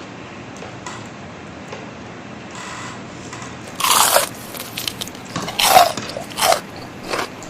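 Crispy deep-fried chicken skin bitten into with a loud crunch about four seconds in, then chewed with several shorter crunches close to the microphone.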